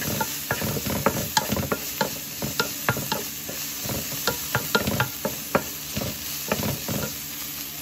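A wooden spatula stirring and scraping sliced button mushrooms around a nonstick frying pan, with irregular taps and scrapes a few times a second over the steady sizzle of the frying.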